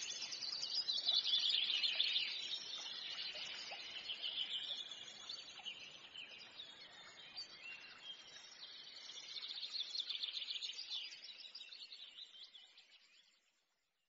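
Songbirds singing, a dense chorus of fast high trills and chirps. They are loudest about a second in and again around ten seconds, then fade out.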